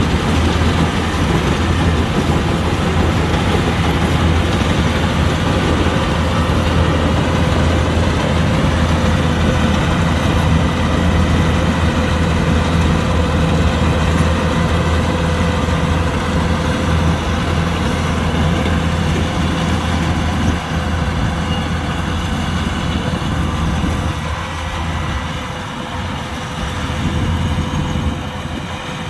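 Kubota combine harvester running steadily as it works a rice field: a loud, even engine drone with the whine of the threshing machinery, easing slightly over the last few seconds.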